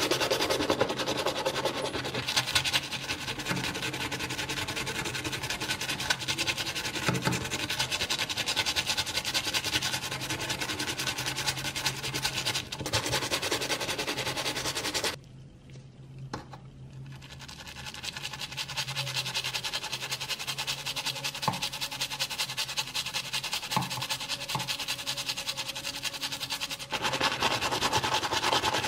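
Stiff brush scrubbing a diecast model car part in foamy suds, a quick continuous rasping that stops for about two seconds midway and then resumes.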